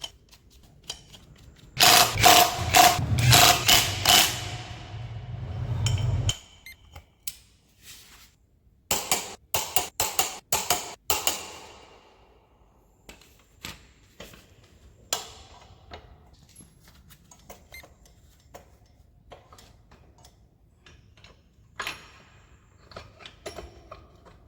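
Metal tools and motorcycle parts clanking and rattling during rear chain-drive work. There is a dense burst of loud clatter lasting about four seconds near the start, then a quick run of sharp metallic knocks around the middle, then scattered light clicks.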